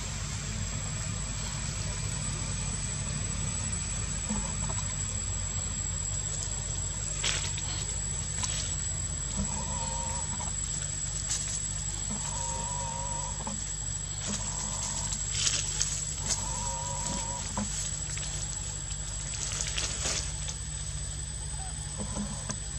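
Several short, even-pitched animal calls, each lasting about a second, come in a run through the middle, over a steady low hum. Scattered clicks and rustles can be heard throughout.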